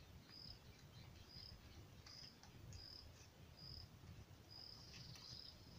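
Faint insect chirping: a short, high chirp about once a second, over a quiet low background hum.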